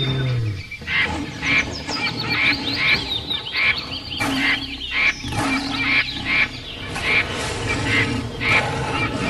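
Jungle ambience: a short animal call repeats about twice a second, over high, quick birdsong chirps.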